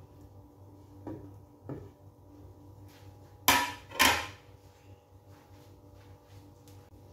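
Kitchenware handled beside the stove: a couple of light knocks, then two loud clatters about halfway through, over a low steady hum.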